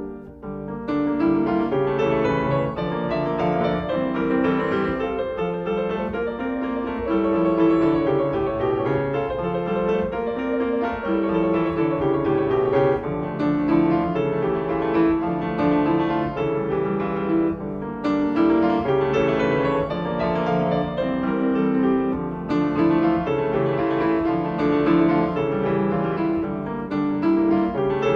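Background music: a piano piece with rhythmic, flowing notes.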